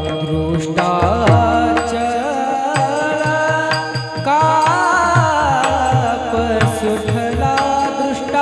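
Devotional bhajan singing: a man's voice drawing out long, wavering melismatic notes over a steady run of hand-drum strokes, with held notes from an accompanying instrument underneath.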